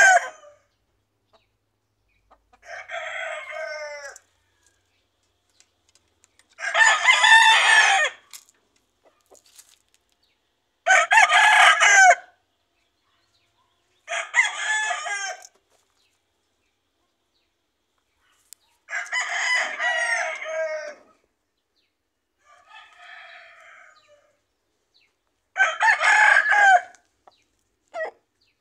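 Gamecock roosters crowing in turn, about eight crows in all, each lasting one to two seconds with short silences between. Some crows are loud and close, others noticeably fainter, as different birds answer one another.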